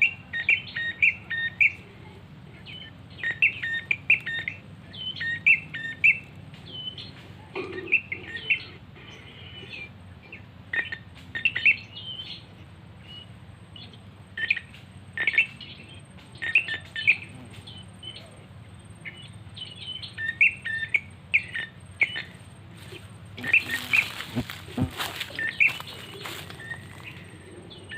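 Repeated short, high chirping phrases of a prenjak (prinia) call, in quick clusters of notes every second or two. About 24 seconds in, there is a brief rustle or handling noise.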